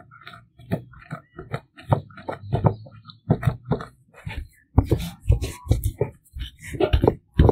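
Round stone pounding and grinding walnut kernels in a wooden bowl: a quick, uneven run of crunching knocks, about three a second, growing louder in the second half.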